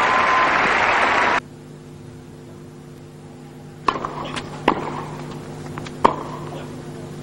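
Crowd applause that cuts off abruptly, then a steady low hum under a doubles tennis rally: rackets striking the ball, three loud hits in under two and a half seconds with fainter bounces and hits between.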